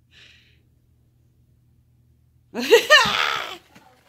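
A short, loud vocal cry about two-thirds of the way in, lasting about a second, its pitch rising and then wavering.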